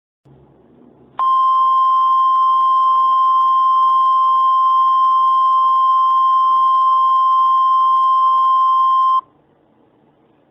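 NOAA Weather Radio warning alarm tone: a single steady tone near 1 kHz held for about eight seconds, starting about a second in and cutting off suddenly, with faint radio hiss either side. It signals that an emergency alert message is about to be read.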